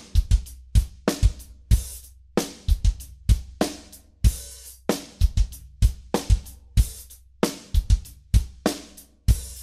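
Outro music built on a drum-kit beat, with kick drum and cymbal hits landing about twice a second.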